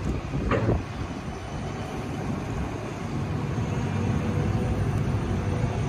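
A blue-and-white GVB tram moving along its tracks, a steady rumble of wheels on rail with a low motor hum, with a short louder clatter about half a second in.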